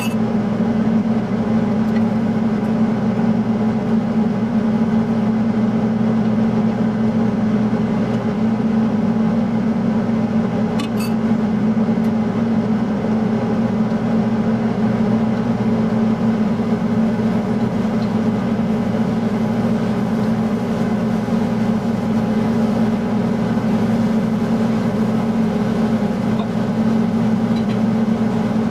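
Kitchen range hood exhaust fan running with a steady low hum, with a few light clicks of the spatula against the wok as the food is stirred.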